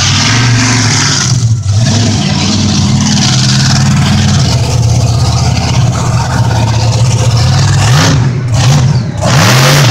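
Monster truck engine running loud and steady, then revved up and down several times in quick succession near the end.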